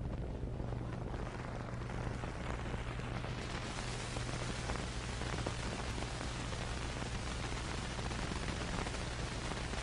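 Surface noise of an old film soundtrack: a steady hiss with faint crackles over a low hum, the hiss growing brighter a few seconds in.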